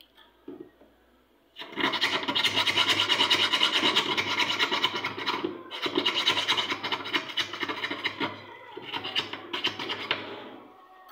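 Rapid, rhythmic scratching strokes that start about a second and a half in, break off briefly about halfway, and fade out near the end.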